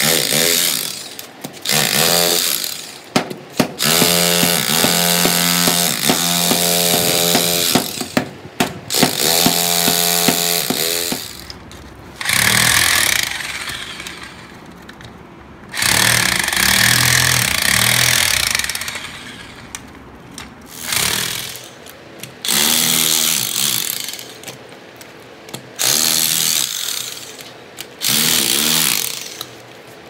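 Handheld electric demolition hammer chiselling into a concrete floor, breaking it up. It hammers in runs of one to four seconds, stopping and starting again about ten times.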